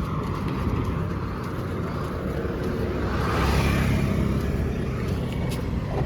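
Road vehicle running with steady engine and tyre rumble; the noise swells louder around the middle, as a vehicle passes close by.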